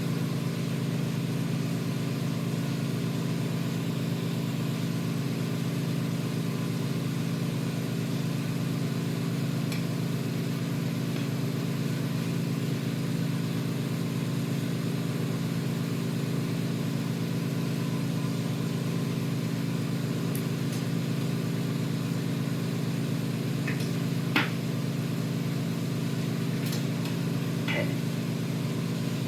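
Steady, unchanging machine hum of shop equipment at the glass-working bench, with a few faint clicks, the clearest about 24 seconds in.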